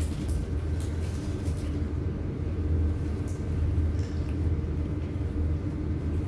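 Apheresis (blood cell separator) machine running with a steady low hum. A few light rustling clicks come in the first second and a half.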